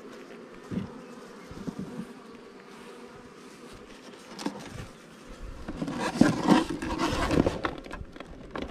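Honey bees humming over an open hive, a steady low buzz, with a few light knocks as a plastic queen excluder is laid on the frames. About six seconds in, louder scraping and rustling of the hive boxes being handled takes over.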